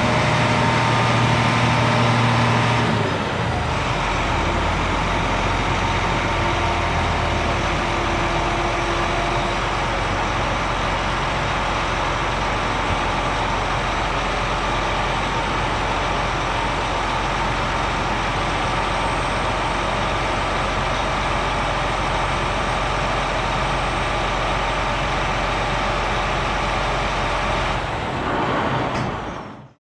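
Heavy vehicle engine running steadily, with a change in its sound about three seconds in, then fading out at the very end.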